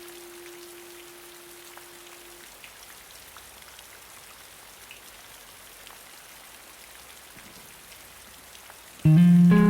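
Steady rain with scattered small drop ticks. A held guitar note dies away in the first couple of seconds, and a loud guitar chord comes in abruptly near the end.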